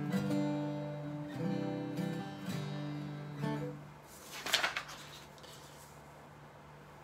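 Acoustic guitar strumming chords, a hymn introduction. About four seconds in the strumming stops, paper sheets rustle briefly under a hand, and the last chord rings on quietly.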